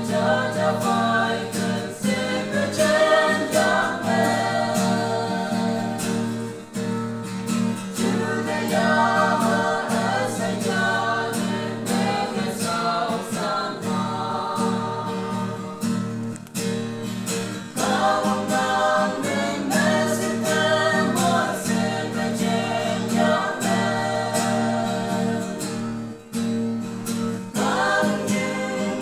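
A small mixed group of men and women singing a gospel song together, accompanied by a strummed acoustic guitar. The singing goes in phrases with short breaks roughly every ten seconds.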